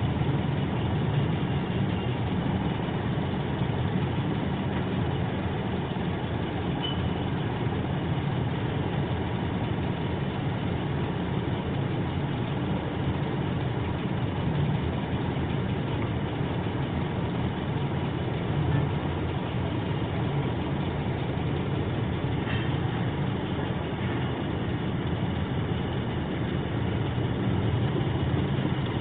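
A taxi's engine idling, a steady low hum heard from inside the car's cabin.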